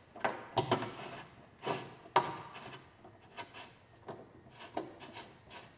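Fiberglass race bodywork and its fasteners being handled: a string of short, irregular scrapes, rubs and light knocks as bolts are started finger tight into the panel.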